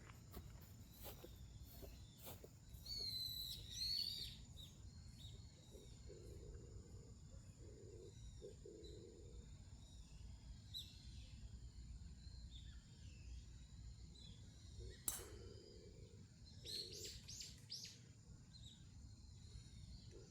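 Quiet open-air ambience with wild birds calling: a burst of chirps about three to four seconds in and a quick series of short calls near the end, over a steady low rumble. A single sharp click about three quarters of the way through.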